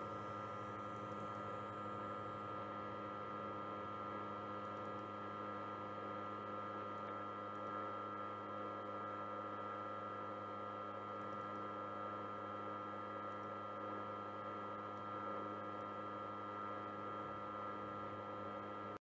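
Steady electrical hum made of several fixed tones, with no other sound. It cuts off abruptly to silence just before the end.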